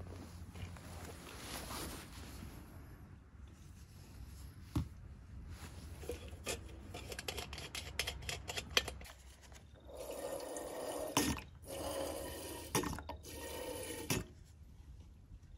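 Fuel squirted from a plastic squeeze bottle into the tank of a brass hurricane lantern, in a few short pours from about ten seconds in. Before that, light clicks and taps as the lantern and bottle are handled.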